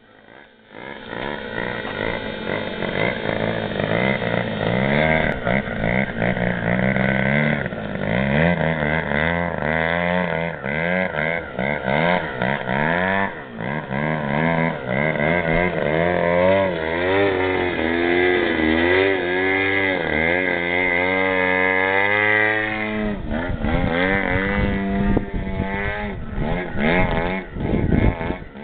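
Engine of a Hangar 9 Extra 260 radio-controlled aerobatic model plane flying 3D aerobatics. Its pitch keeps rising and falling with throttle changes and as the plane passes, and it swings more quickly up and down in the last few seconds.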